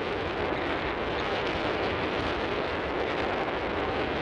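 Steady rush of wind across the microphone and water along the hull of a catamaran under way.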